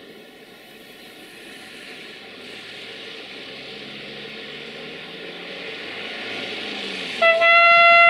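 CFR 060-EA electric locomotive approaching, its running noise growing steadily louder, then about seven seconds in it sounds its horn, one loud steady tone held for about a second.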